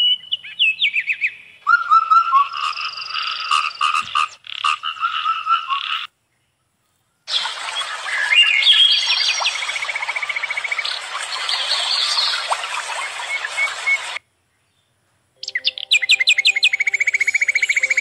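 Nature sound of frogs croaking and birds calling in high chirps and fast pulsed trills, with a steady rush of running water under the middle stretch. The sound cuts off abruptly twice, about six seconds and about fourteen seconds in, leaving a second or so of silence each time.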